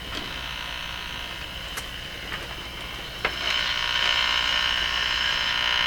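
Static and hiss from a vintage Admiral five-tube AM radio's speaker as its dial is tuned between stations. A click comes about three seconds in, and after it the noise gets louder.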